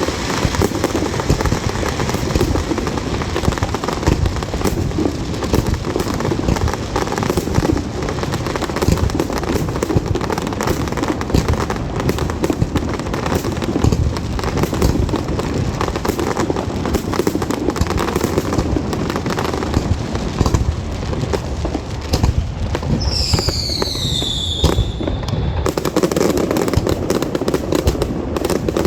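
Fireworks display: a dense, continuous run of bangs and crackling with no pause. About 23 seconds in, a whistling firework sounds a high whistle that falls in pitch over about two seconds.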